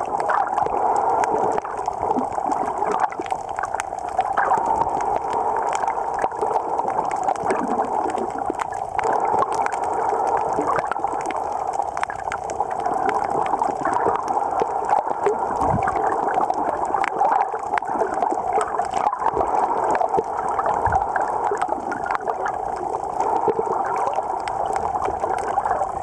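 Underwater ambience heard through a camera's waterproof housing: a steady, muffled rush of water with many small clicks scattered throughout.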